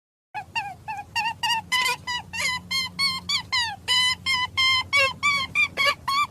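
A rapid series of short, high-pitched animal calls, about three to four a second, some sliding down in pitch.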